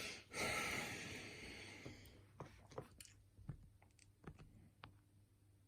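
Lock picking tools being handled and set in a lock cylinder: a faint rustling scrape that fades over the first two seconds, then scattered small clicks of metal tools in the keyway.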